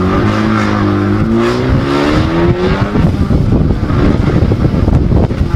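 Ford Focus ST engine accelerating hard from a launch, with its exhaust cutout fully open so the gas bypasses the muffler; the pitch climbs. About three seconds in, wind buffeting the microphone takes over.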